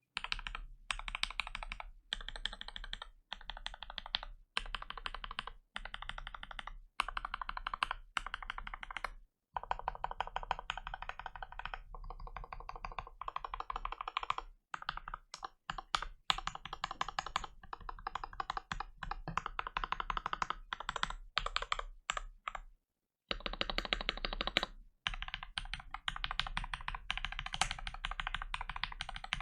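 Fast typing on a Gamakay LK67 mechanical keyboard with lubed Gateron Milky Yellow linear switches and Kaiju-style keycaps, a budget 'thoccy' linear board. Dense runs of rapid keystrokes last a second or two each, broken by short pauses.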